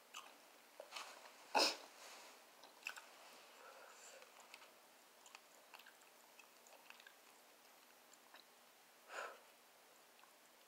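A person chewing fried barbecue rib meat close to the microphone, with scattered small wet mouth clicks. There is one sharp louder smack about a second and a half in and another softer mouth sound near the end.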